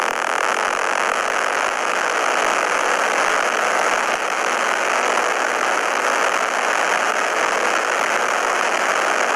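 Loud, steady static-like hiss with no clear pitch, part of a mock Emergency Alert System alarm.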